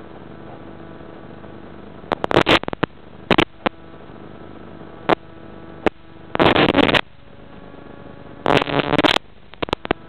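Audio from a small camera riding a model aircraft in flight: a steady electrical hum with faint steady tones, broken about seven times by short, loud crackling bursts of noise, the longest about two thirds of the way through.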